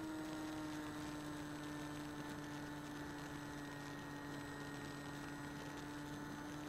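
Small electric motor and propeller of a foam RC plane running steadily under autopilot, heard through the onboard camera's microphone as a steady hum whose pitch sags slightly.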